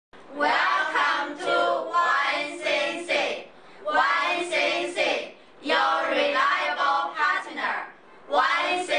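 A group of men and women chanting a company slogan together in unison, in four short phrases with brief pauses between them.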